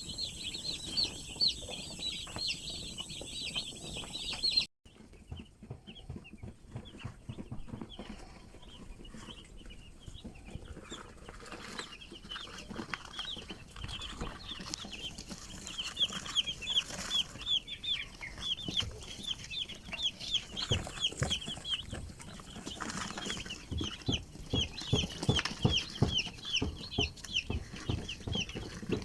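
A flock of young chickens peeping constantly, a dense chorus of short high calls. The sound drops out briefly about five seconds in, and low knocks and bumps come in over the second half.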